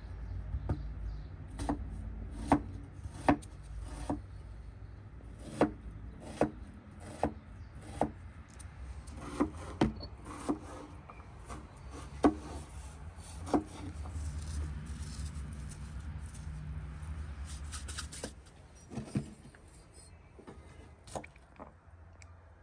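Knife chopping food on a wooden cutting board: sharp, irregular strikes about every second that stop about two-thirds of the way through, then a couple more near the end, over a low steady rumble.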